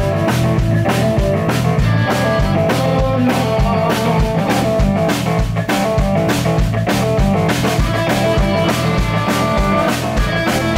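Live rock band playing an instrumental passage without vocals: electric guitar taking the lead over electric bass and a steady drum-kit beat.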